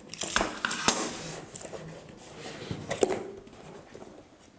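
Hands working at a taped product box to open it: scattered knocks and clicks with light rustling of the packaging, three sharper knocks standing out.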